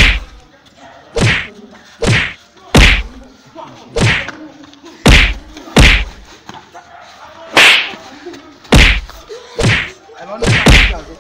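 A string of about a dozen punch and blow impacts in a mock fist fight, roughly one a second at uneven spacing, each a sharp whack with a deep thud under it.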